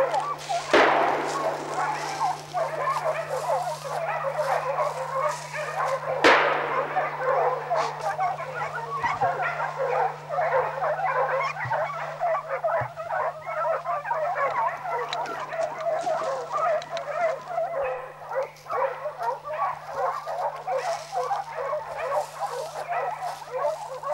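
A pack of hunting hounds baying and barking without pause on wild boar. Two gunshots crack out, about a second in and again about six seconds in, each ringing off the hillside.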